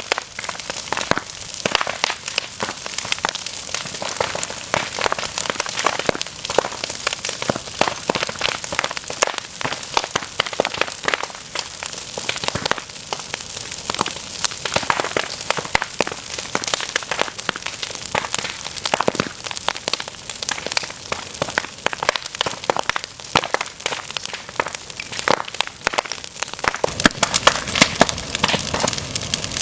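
Fire crackling: a dense, irregular run of sharp pops and snaps over a soft hiss, getting louder with heavier cracks near the end.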